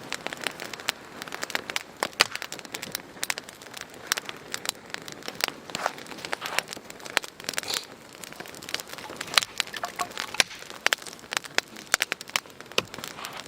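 Burning firewood crackling, with many irregular sharp pops and snaps.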